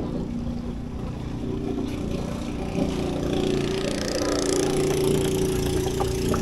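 A small engine running steadily with a droning hum, growing louder from about halfway through.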